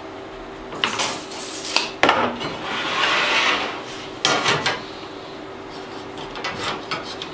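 A thin steel strip and a metal speed square handled on a wooden workbench: metallic rattling, a sharp clank about two seconds in followed by a scraping slide, another clank a couple of seconds later, and lighter taps near the end, over a faint steady hum.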